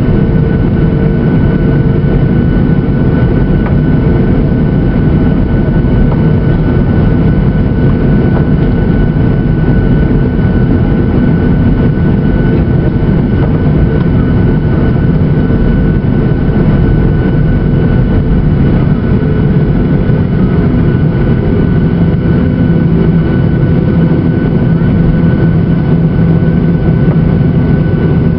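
Boeing 737-800's CFM56-7B turbofan engines running at steady taxi power, heard inside the cabin: a constant low drone with a few steady whining tones and no change in pitch or level.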